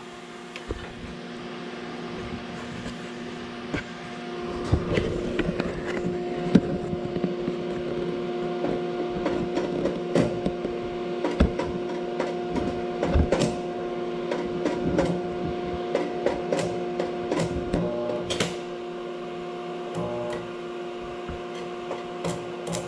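Vulcan Commander 225 transformer arc welder buzzing with a steady AC hum while a stick-welding arc crackles and pops on AC. The hum grows louder about four to five seconds in as the arc gets going, and the crackling is uneven: the arc is hard to start on AC.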